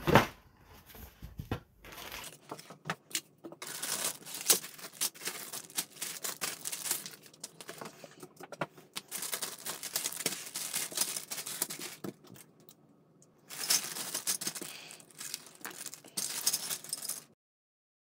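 Clear plastic bags holding the yellow sprues of a plastic model kit being handled, crinkling and rustling, with the hard plastic parts rattling inside. A knock at the start as the cardboard box lid comes off; the crinkling cuts off suddenly near the end.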